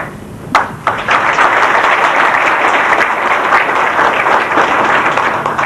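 Audience applauding: a couple of separate claps, then a dense, steady round of applause that dies away near the end.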